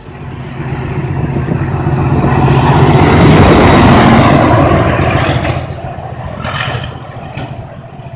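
A train passing close by on the tracks, a rumble that swells to a peak about three to four seconds in and then fades away.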